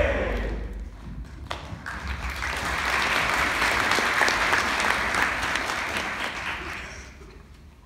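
Theatre audience applauding. The applause swells after a couple of seconds and dies away near the end.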